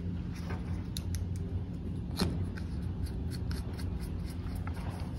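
Small clicks and scraping of a screwdriver turning the wire terminal screws in a plastic powerCON connector, with one sharper click about two seconds in, over a steady low hum.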